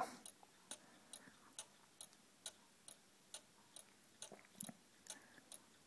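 Black Forest cuckoo clock's two-weight, 30-hour movement ticking faintly and evenly, about two ticks a second.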